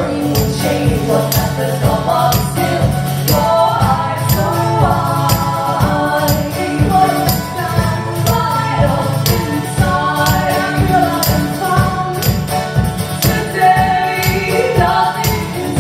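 Live folk-pop song: sung vocals in harmony over a steady strummed, percussive beat.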